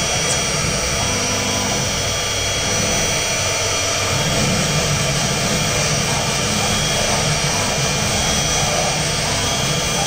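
CNC router's spindle motor running with a steady high whine while its bit cuts a groove into a board, over a constant cutting noise.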